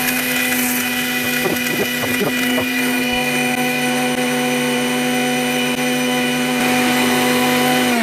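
Havells mixer grinder's motor running steadily at full speed, grinding whole dried turmeric in its steel jar under a load of about 600 watts.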